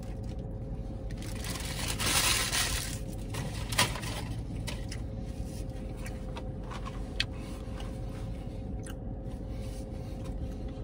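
Paper fast-food wrapper rustling and crinkling for about a second and a half near the start, then chewing with a few small clicks, over a steady hum inside a car.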